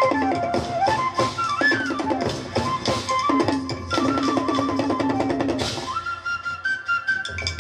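Instrumental folk music: a set of bowl-shaped, cord-laced drums is struck with sticks in a quick, steady rhythm under a gliding melody line that sounds like a flute. Near the end the melody settles on one long held high note and the low drum part drops away.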